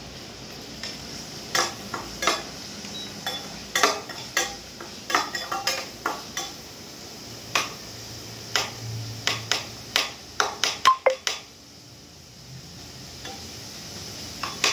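Spatula stirring and scraping in a steel pan, with irregular knocks against the metal and a frying sizzle underneath. A quick run of loud knocks comes about ten seconds in, then the stirring goes quieter.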